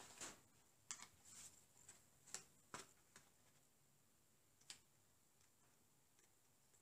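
Faint, sharp snips of scissors cutting through thin cardboard: several in the first three seconds, one more a bit later, then near silence.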